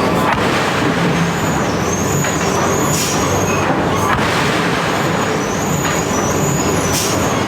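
Steady machine noise from iron-striking machinery, with a sharp strike and brief hiss about every four seconds, the strikes three seconds and seven seconds in, each followed by a weaker knock about a second later.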